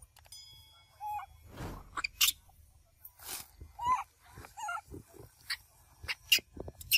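Young macaques giving a few short calls that rise and fall, about a second in and again around four to five seconds in, among scattered clicks and brief rustling.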